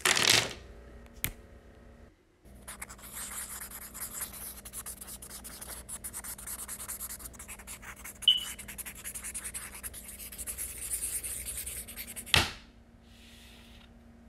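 Felt-tip marker scribbling on paper for about ten seconds, a continuous scratchy rubbing with one short squeak partway through. A short, louder burst comes right at the start and another just as the scribbling stops.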